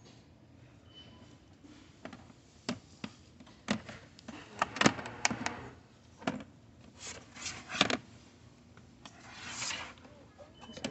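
Clear plastic Logix craft storage cases being handled and shifted on a store shelf: a run of hard clicks, knocks and rubbing scrapes, busiest in the middle, with a brief scraping rub near the end.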